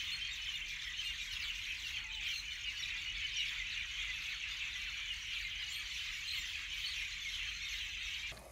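A dense, steady chorus of many birds chirping and calling together, cutting off abruptly just before the end.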